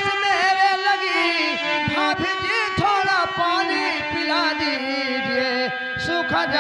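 Nautanki folk song: a singer draws out a long, ornamented line whose pitch wavers and bends, over steady held instrumental notes.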